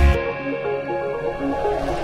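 Background music of short repeated pitched notes, with the heavy bass dropping out just after it begins.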